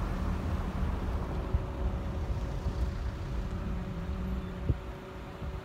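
Steady low rumble of a car driving, with wind buffeting the microphone and a couple of light knocks.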